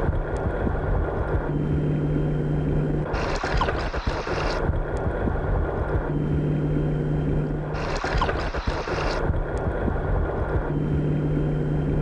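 Underwater recording of a scuba diver's regulator breathing: a hissing inhale alternates with a lower, rumbling exhale of bubbles, in a slow, even rhythm of about one breath every four and a half seconds, over a continuous underwater rumble.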